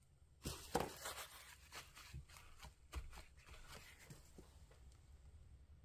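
Faint rustling, scraping and light tapping of hands working a paper journal page, pressing a glued length of twine down onto it. The sounds are loudest about half a second in and die away after about four seconds.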